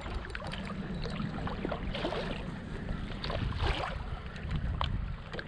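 Water slapping against a fishing kayak's hull with wind noise on the microphone, broken by a few brief ticks and splashes.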